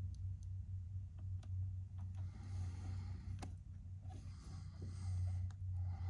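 Faint scattered clicks and a soft scraping as the cable of a handheld inspection camera is fed down into an engine's lifter bore, over a steady low hum.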